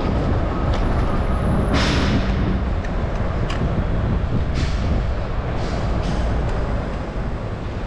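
Steady low rumble of wind and road noise from a moving bicycle, with short hisses about two seconds in and again around five and six seconds in.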